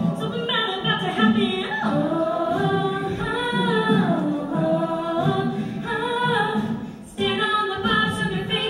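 Mixed male and female a cappella group singing in close harmony with vocal percussion. The sound thins out about seven seconds in, then the full group comes back in sharply.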